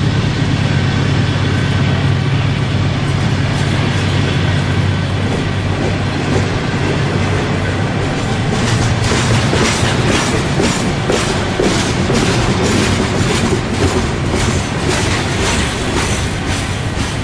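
Freight train of open-top hopper cars rolling past close to the track: a steady rumble of steel wheels on rail. From about halfway it turns into a regular clickety-clack of wheels over rail joints, about two to three clicks a second.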